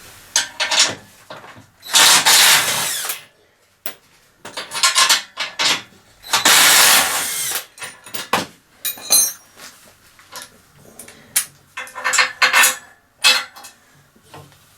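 Impact gun running in short bursts on 19 mm bolts, two longer runs of about a second each, with clinks of steel parts, nuts and washers in between.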